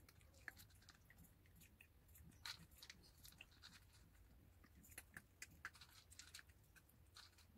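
Small Shih Tzu–Maltese dog chewing dry kibble: faint, irregular crunches, a few louder ones about two and a half seconds in and around five seconds in.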